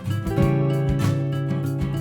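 Background music: strummed acoustic guitar with held chords over a steady beat.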